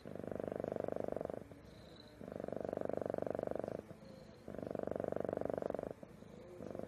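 Domestic cat purring in a steady rhythm. Loud phases of about a second and a half alternate with softer, shorter ones as it breathes in and out, four loud phases in all.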